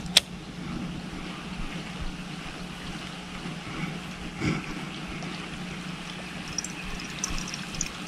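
Quiet outdoor ambience with a faint steady low hum, a single sharp click just after the start, and a few faint high chirps near the end.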